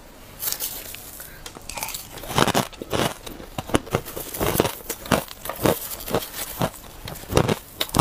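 Shaved ice with firmer chunks in it being eaten at close range: crisp, irregular crunches as bites are chewed and a spoon digs into the ice.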